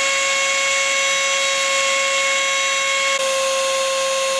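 Brushless outrunner motor (Turnigy P2627L, 4200 kV) driving a Foredom handpiece spindle at high speed, its fine bit engraving a plastic phone case: a steady high-pitched whine over a hiss. The tone shifts slightly lower about three seconds in.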